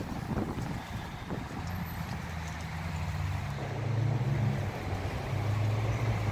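A motor vehicle engine running with a low, pitched hum that comes in about two seconds in and grows louder toward the middle.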